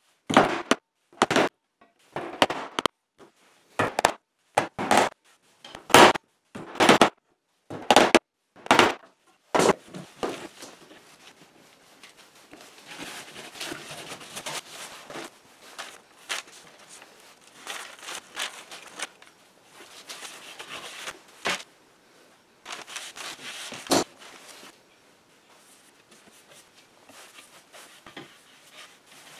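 Claw hammer driving small nails through wooden battens into a plank panel: about a dozen sharp strikes, roughly one a second, over the first ten seconds. After that a cloth rubs over the wood in uneven stretches, with one more knock near the end.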